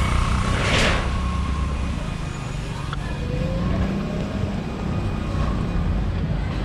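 City street traffic noise: a steady low rumble of vehicles and scooters, with a short rushing noise about a second in.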